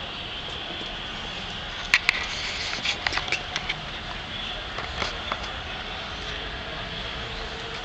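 Steady hum of street traffic, with two sharp clicks about two seconds in, a quick run of lighter clicks and taps just after, and a couple more around five seconds in.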